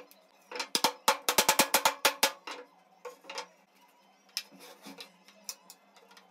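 Wooden mallet tapping the glued mortise-and-tenon joints of a wooden chair frame home: a quick run of about a dozen sharp knocks, then slower, scattered taps.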